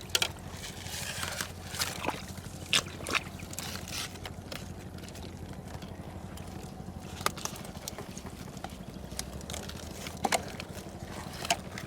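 Water sloshing and trickling, broken by scattered small splashes, with a steady low hum underneath.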